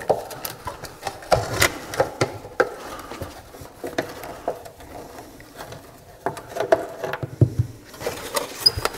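A nut driver turning out screws from a rusty metal heater box of a 1966 Mustang, with irregular clicks, scraping and light knocks as the driver and hands work the steel housing.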